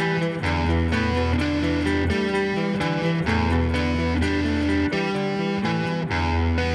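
Instrumental passage of a slow stoner-rock song: electric guitars playing chords over low bass notes that change about every one to one and a half seconds, with no singing.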